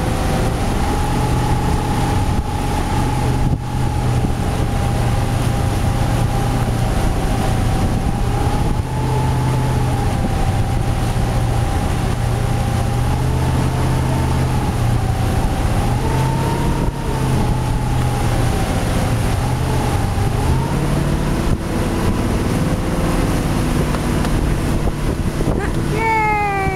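Motorboat engine running steadily while towing, with wind on the microphone. A whining tone wavers slightly and shifts about twenty seconds in, then slides in pitch near the end.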